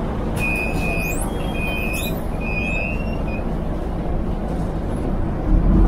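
Interior of a moving Volvo city bus: a steady rumble of engine and road. In the first half, three short high-pitched squeals sound one after another.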